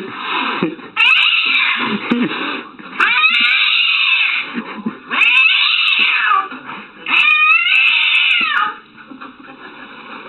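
Cat yowling: four long, drawn-out wails about a second and a half each, rising and falling in pitch, with short pauses between.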